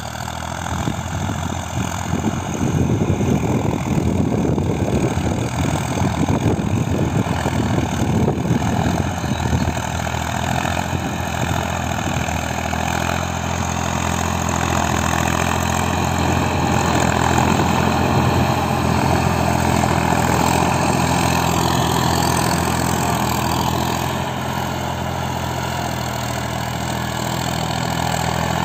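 Deutz-Fahr 3035E tractor's diesel engine running steadily under load as it pulls a nine-tine cultivator through dry soil. A rough, rattling noise rides over the engine for the first ten seconds or so.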